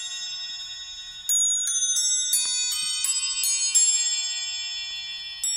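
Camerer Kuss triple-fusee clock movement chiming the quarters on a nest of eight bells. The ringing of one chime phrase dies away, then a run of about eight hammer strikes follows at roughly three a second, each bell ringing on. The next phrase starts just at the end.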